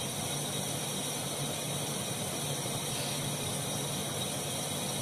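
Steady background hiss with a low hum and no distinct events: room noise.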